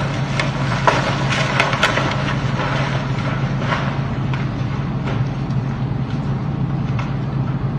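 Rocks sliding and knocking against each other, with sharp clatters bunched in the first two seconds that then thin out, over a steady low hum.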